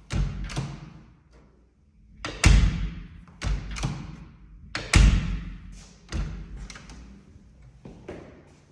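A series of heavy, irregularly spaced thumps, about seven in all, each ringing out with a long echoing tail; the loudest come about two and a half and five seconds in.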